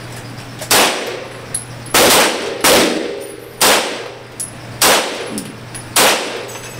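Beretta pistol fired six times at an uneven pace, about one shot a second, each shot sharp with a ringing tail.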